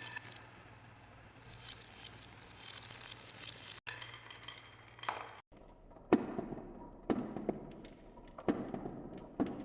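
Balls rolling and clattering down a wooden marble-run track: a dense crackle of small clicks for about five seconds. After a brief break come single sharp, ringing knocks about once a second as balls drop and strike the wood.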